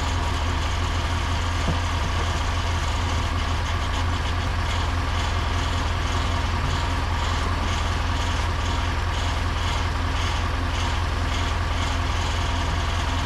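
An engine idling steadily with a low, even drone. Straw rustles faintly as a big straw bale is shoved along the barn floor.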